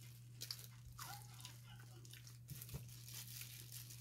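Faint crinkling and crackling from eating by hand in thin plastic gloves, gloved fingers working a plate of rice and meat, over a steady low hum.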